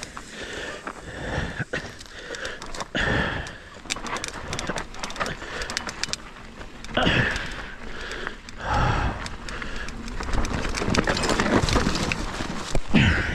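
Rocky Mountain Instinct full-suspension mountain bike rolling fast down a rough dirt and gravel trail, with constant rattling and knocking of the bike and tyres over stones and wind on the helmet camera. Near the end the bike crashes into a dirt bank in a loud clatter.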